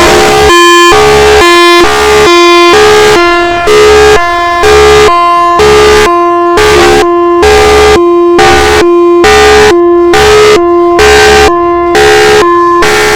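Thunderbolt siren sounding its hi-lo signal, really loud: two pitches alternating steadily, switching about twice a second.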